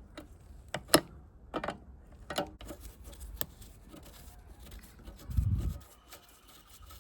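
Scattered metallic clicks and taps of a spanner on the brake line nuts of a master cylinder as they are loosened, with one dull low thump about five seconds in.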